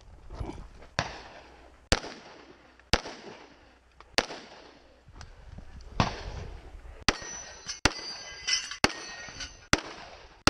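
Springfield Armory 1911 .45 ACP pistol fired in a string of about nine single shots, mostly about a second apart with a longer pause midway. Near the end, steel targets ring after being hit.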